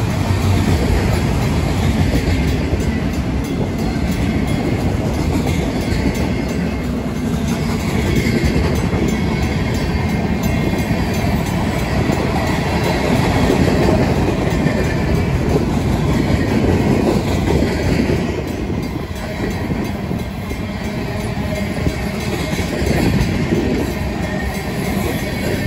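Freight cars of a mixed freight train rolling past at close range, with a steady rumble and clatter of wheels on rail. The grade crossing's bells ring throughout, faint under the train.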